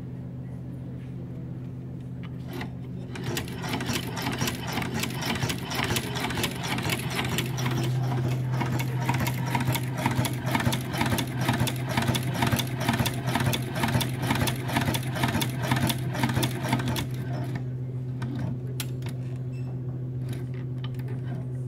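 Hand-cranked cobbler's patcher sewing machine stitching leather: a fast run of rapid clicking and rattling, starting about three seconds in and stopping around seventeen seconds, with a few single clicks before and after. A steady low hum runs underneath.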